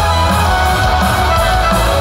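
Rock band playing live through a PA, loud and steady: amplified guitar holding long notes over bass and drums.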